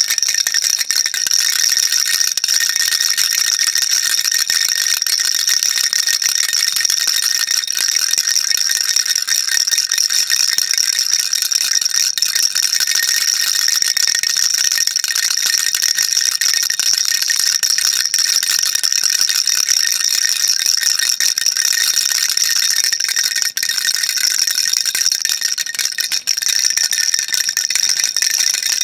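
Baby rattle shaken nonstop: a dense, steady, high-pitched rattling of small beads inside the toy, with no pauses.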